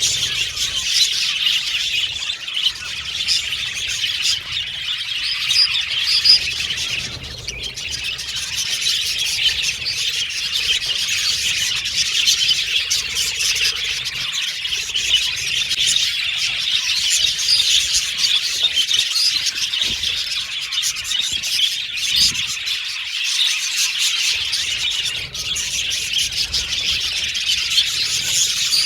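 A flock of budgerigars chirping and chattering continuously, many birds at once.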